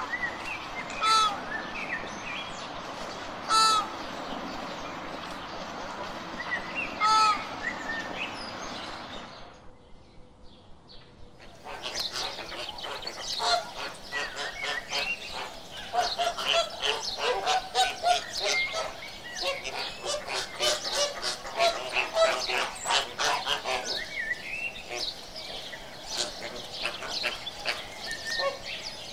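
Flamingos honking: a few loud, widely spaced honks over a steady background, then after a short lull a dense flock chatter of many overlapping calls, busiest midway and thinning near the end.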